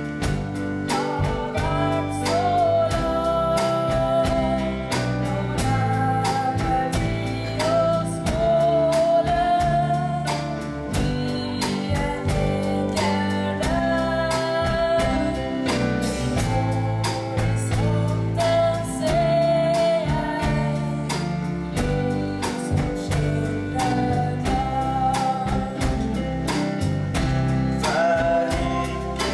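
A young woman singing a song with long held notes, accompanied by a strummed guitar.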